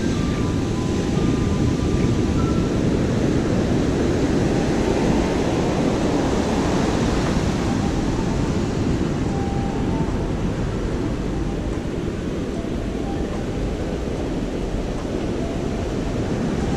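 Steady rush of ocean surf breaking on a sandy beach, mixed with low wind rumble on the microphone.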